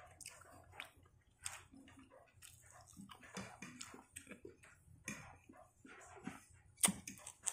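A person chewing food close to the microphone: faint, irregular soft clicks and mouth smacks, with a couple of sharper clicks near the end.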